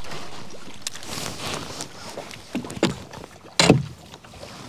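A few knocks and bumps in a small aluminium boat as a hooked trout is played and the landing net is brought out, the loudest about three and a half seconds in, over wind noise.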